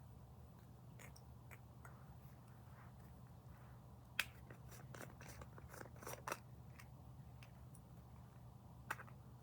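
Faint scattered clicks and rustles over a low steady hum, the sharpest click about four seconds in and another near the end.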